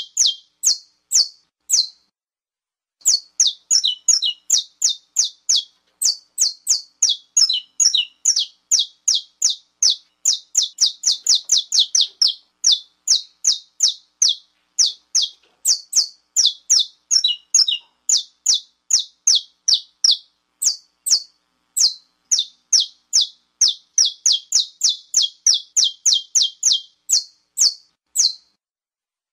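Saffron finch (canário-da-terra) giving its estalo: long runs of sharp, rapid snapping notes, several a second, broken by short pauses, with one gap about two seconds in. Keepers play this call to fire up other males.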